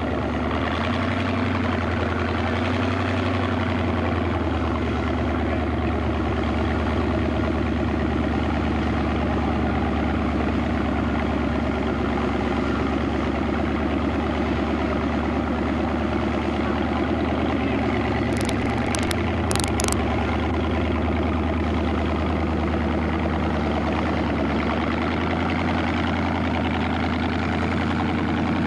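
Engine of a modified Jeep-style off-road trial 4x4 running steadily at low revs as it crawls over rock, a low rumble. A few brief high ticks a little past the middle.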